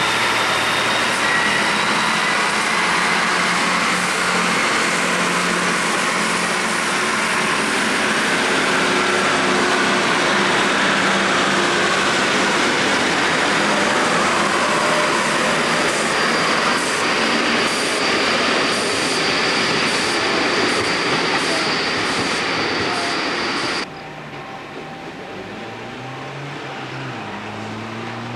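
A diesel train passing close by: a loud, steady rush of wheel and engine noise with a high steady whine, and a regular click about once a second in the later part. About 24 s in it cuts off abruptly to a quieter engine sound whose pitch rises and falls.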